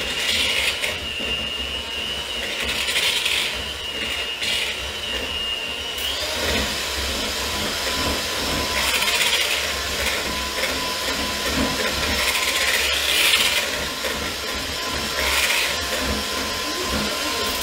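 Electric hand mixer whipping coconut cream in a plastic bowl: a steady motor whine that steps up to a higher pitch about six seconds in as the speed is turned up from low.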